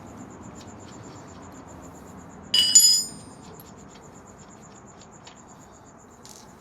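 Steel hand wrenches clinking together in a short, ringing metallic clatter about two and a half seconds in, against quiet scraping and handling noise from work on the rear axle nut.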